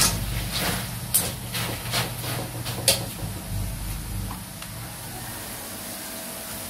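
Wire-mesh spider strainer scraping and knocking against an aluminium wok as a batch of deep-fried peanuts is stirred, a run of sharp clicks in the first three seconds. A steady hiss from the hot oil runs underneath, and the clicks stop once the strainer is set down.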